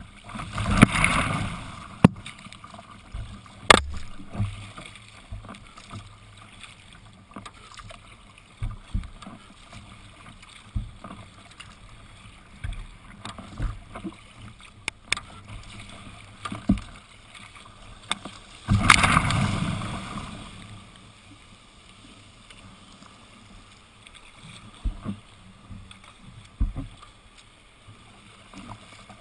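Choppy water splashing and slapping against a sea kayak's hull, with two louder rushes of water about a second in and about two-thirds of the way through, and scattered sharp knocks.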